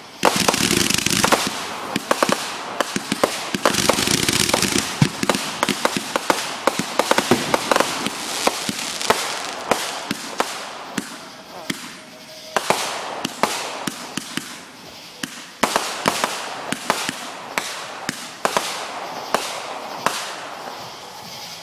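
Fireworks going off: rapid sharp cracks and pops over crackling, with two heavy bursts of loud hissing, one at the start and one about four seconds in.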